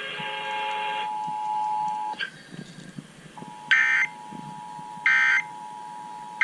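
Emergency Alert System end-of-message data bursts over the radio: three short, loud digital squawks about a second and a half apart, marking the end of the required monthly test. Under them a steady EAS attention tone sounds, dropping out for about a second near the middle, and a steady chord of tones cuts off about a second in.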